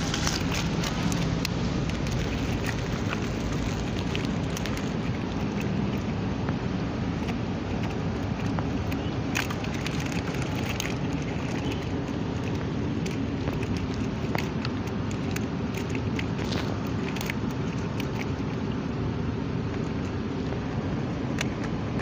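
Small rustles and clicks from a mesh keep net full of fish being handled, over a steady rumbling background noise.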